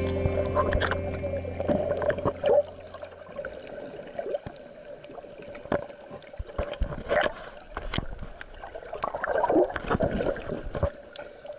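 Under water: gurgling air bubbles from scuba divers, with scattered sharp clicks and knocks and bursts of bubbling about seven seconds in and again near the end.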